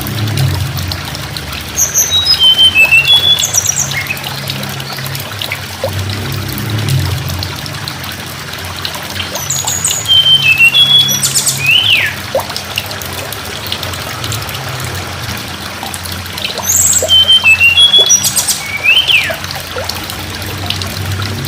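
A tledekan gunung songbird singing three repeated phrases about seven seconds apart, each a quick run of high, thin whistled notes ending in a note that rises then falls. Beneath it runs a steady rushing background like running water and a low hum.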